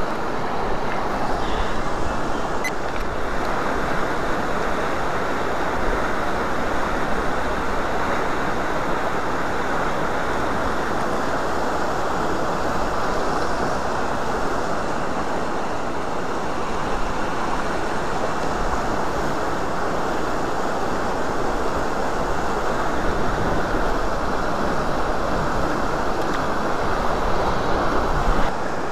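Fast river in high water rushing steadily over rocks and riffles.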